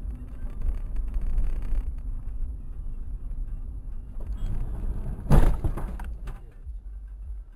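Steady low rumble of a car driving on a street, with a sudden loud bang of a collision about five seconds in and a smaller knock about a second later.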